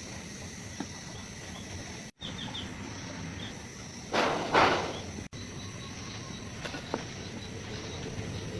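Outdoor background with a steady high insect chirr, broken by two short loud scraping strokes about four seconds in and a few faint clicks. The sound drops out completely for an instant twice.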